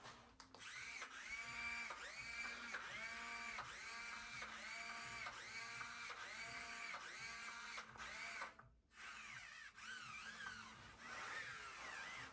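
Small electric motor whining in short repeated pulses, about two a second, each one spinning up and holding its pitch. After a brief pause near the end the motor runs on with its pitch wavering up and down.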